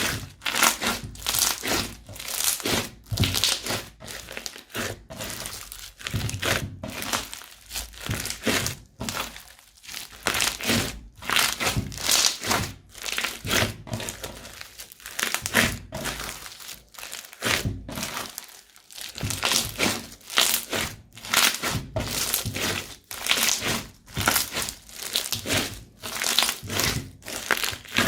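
Crunchy slime being squeezed, stretched and poked by hand, giving a dense run of crackling and crinkling pops, a burst every half second or so.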